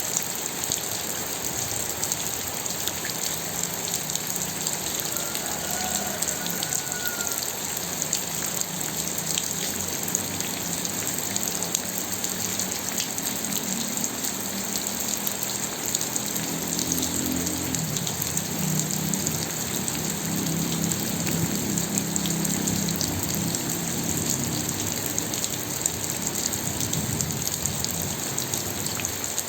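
Steady rain falling, with many small drops ticking on a surface. A low rumble rises underneath in the second half.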